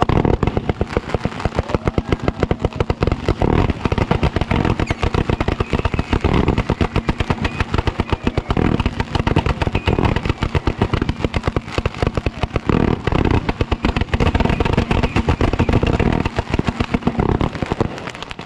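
Fireworks tubes firing at close range: a rapid, nonstop barrage of launch bangs and pops that starts suddenly.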